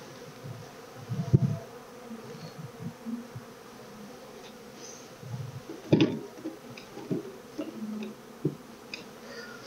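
Honeybees buzzing steadily around an open hive, with short wooden knocks and scrapes as frames are lifted and handled; the loudest knocks come about a second in and again about six seconds in.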